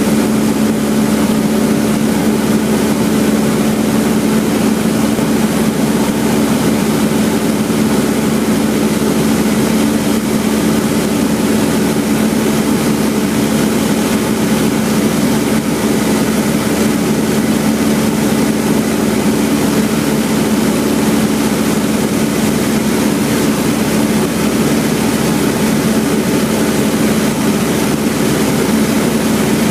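Cessna 172's piston engine and propeller running steadily in flight, heard from inside the cabin: a loud, even drone with a strong low tone over a constant rushing noise.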